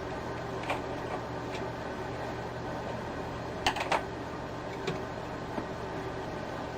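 Irregular clicks and taps from handling a 1948 Singer Model 66 sewing machine, with a close cluster of sharp clicks about four seconds in, over a steady hum.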